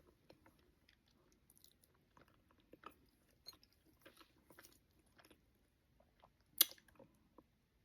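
Close-up mouth sounds of eating oxtail, rice and cabbage: faint wet chewing and lip smacks in short irregular clicks, with one sharper click near the end.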